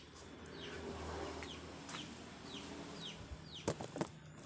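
Chicken peeping nearby: a short, high, falling peep repeated about every half second. A few sharp knocks come near the end.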